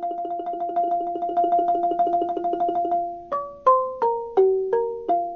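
Background music with no speech: a quick string of repeated struck notes, about seven a second, then from about three seconds in slower single notes that step down in pitch.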